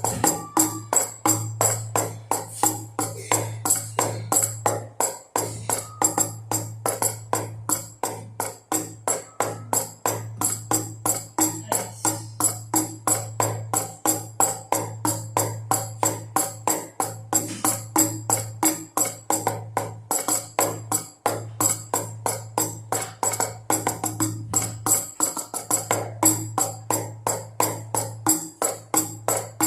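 Baby rattle shaken in a steady, fast rhythm over drum beats, a continuous jingly percussion loop with no pauses.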